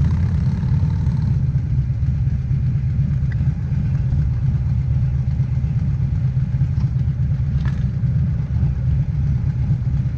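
Harley-Davidson motorcycle's V-twin engine running with a steady low rumble.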